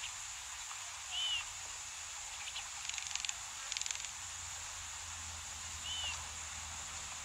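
Bush ambience with a steady high hiss, over which a bird gives a short arched chirp twice, about a second in and near the end. Two brief rapid rattling trills come in the middle.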